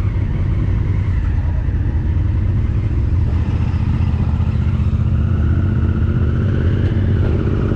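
Honda CRF1000L Africa Twin motorcycle riding along, its parallel-twin engine running steadily under a heavy low rumble of wind on the microphone. The engine note rises a little about five seconds in.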